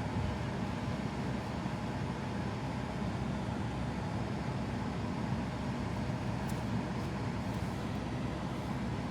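Steady low rumble of a car's running engine and cabin noise heard from inside the car, with a few faint clicks late on.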